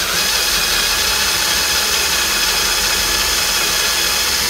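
Makita power drill running steadily at low speed under heavy pressure, its bit boring into the head of a rivet in an aluminum boat's transom to drill the rivet out.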